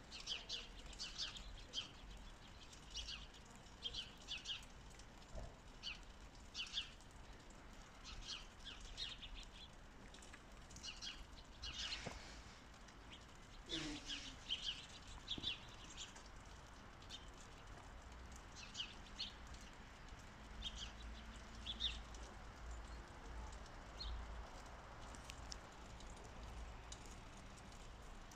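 Small birds chirping, with short high chirps in quick clusters throughout, over a faint low rumble.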